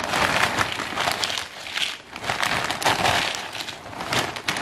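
Plastic tortilla chip bag crinkling and crackling as it is handled, in several waves of noise.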